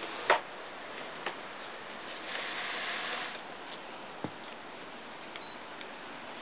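Handling noise over a steady hiss: a sharp click about a third of a second in, fainter clicks later, and a brief rustle of about a second near the middle.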